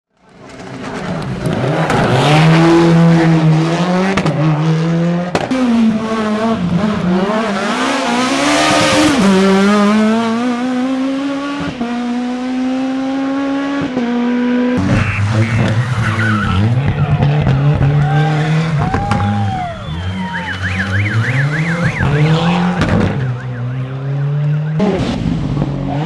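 Rally cars at full attack, their engines revving hard and rising and falling in pitch as they shift up and down through the gears. The sound fades in during the first second, and there is an abrupt cut to another car about 15 seconds in.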